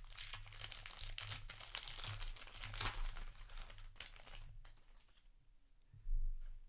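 Foil wrapper of a Magic: The Gathering play booster crinkling and tearing as it is pulled open by hand and the cards are slid out. The crackling dies down after about four and a half seconds, and a soft thump follows near the end.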